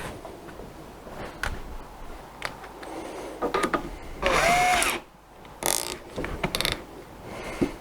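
A small electric motor whirs in short bursts whose pitch swoops up and down, the loudest about halfway through, among scattered clicks and knocks of hand work on the machine.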